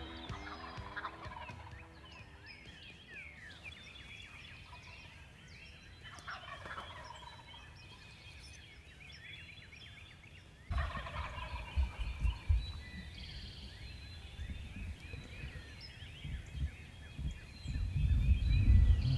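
Wild turkey toms gobbling repeatedly from the roost at first light, with small birds calling. From about ten seconds in, a low rumbling noise on the microphone joins, louder near the end.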